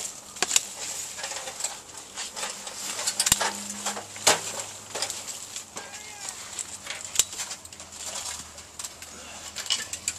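Tree branches and leaves rustling, with a string of sharp snaps and clicks as the branches are pushed through and cut with loppers.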